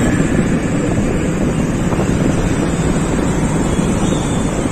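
Wind buffeting the microphone over the steady rumble of a moving vehicle.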